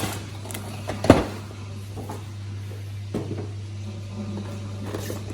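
Packaging of a boxed 1:6 scale collectible figure being handled and opened: scattered clicks and rustles, with one sharp knock about a second in, over a steady low hum.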